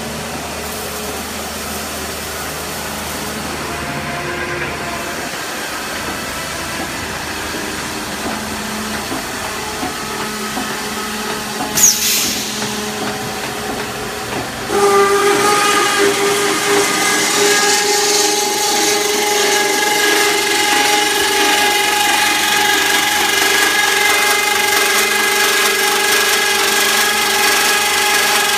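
Rack beam roll forming line running with a steady mechanical hum, a brief sharp hiss about 12 s in. About 15 s in it gets suddenly louder, with a steady multi-tone whine as the line's bandsaw cutter runs at the exit end.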